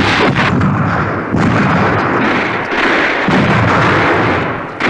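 A battery of field guns firing rapid fire, with shells bursting: many overlapping booms and cracks merging into a continuous rumble.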